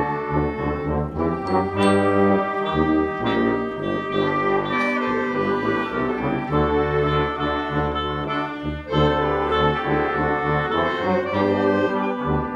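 High school band playing, brass to the fore, in full sustained chords over a steady bass line.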